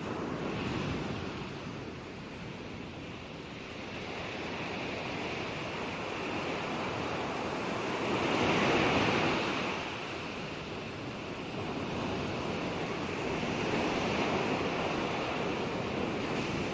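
Ocean waves breaking and washing on shore in a continuous rush, swelling and easing; the biggest wave breaks about halfway through, another a few seconds later.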